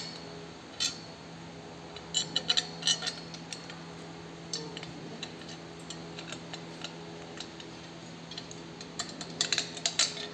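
Sharp metal clinks and taps from steel handle pipes and bolts being handled and fitted together. They come in scattered clusters: one just after the start, a run about two to three seconds in, and a denser, louder run near the end, over a steady low hum.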